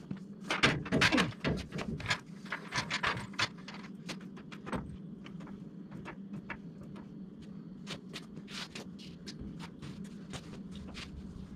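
Metal clanks and clatter, loudest in the first few seconds, then lighter scattered clicks, as a steel floor jack is set under the car's front end to raise it, over a steady low hum.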